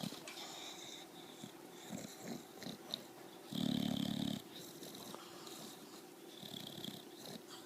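Bulldog snoring in its sleep: a series of breaths, the loudest a low snore lasting almost a second about three and a half seconds in, with quieter snores and wheezes before and after it.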